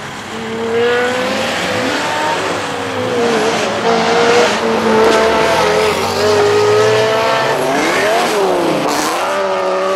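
Supercar engines accelerating hard, the engine note climbing and dropping repeatedly as it revs, with a sharp rise and fall about eight seconds in.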